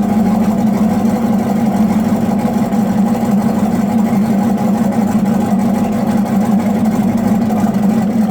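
Turbocharged 305 small-block Chevrolet V8 of a 1984 GMC 1500 running steadily at low revs through a large 4-inch-into-5-inch exhaust, with the truck in low range.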